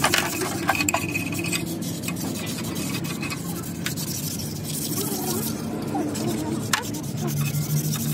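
Scraping and rubbing on metal, with a few sharp taps, and voices in the background.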